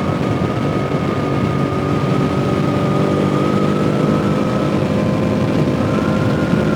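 2017 Yamaha R3's 321 cc parallel-twin engine running at a steady cruise. Its pitch sags slightly and picks up again about six seconds in.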